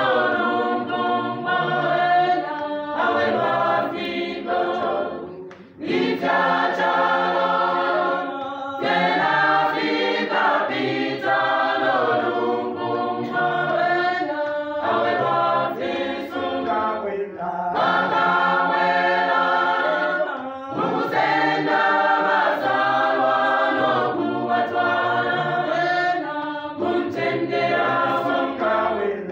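Gospel choir of women's and men's voices singing a hymn in Bemba a cappella, in sustained multi-part phrases with short breaks between them.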